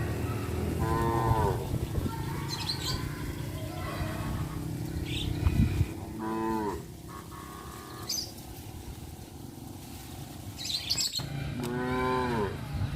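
Cows mooing three times, spaced several seconds apart, each call falling in pitch at its end.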